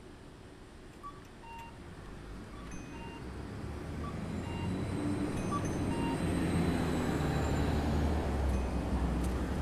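A motor vehicle approaching, its engine and road rumble growing steadily louder over about seven seconds and then holding.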